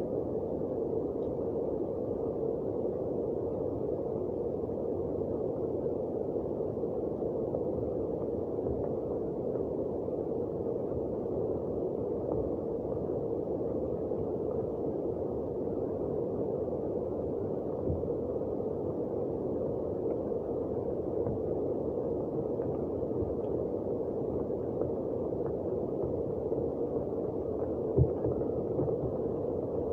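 Steady rushing of water with no break, with a single brief knock near the end.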